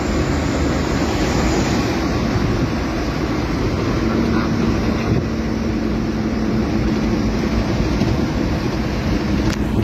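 Steady road and tyre noise with engine hum, heard inside the cabin of a car cruising on a highway; a low steady hum joins about four seconds in.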